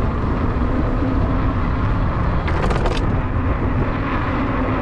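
Wind buffeting the microphone and rolling noise of a bike ridden over city pavement, with a faint steady hum underneath. A brief clatter of rattling clicks comes about halfway through.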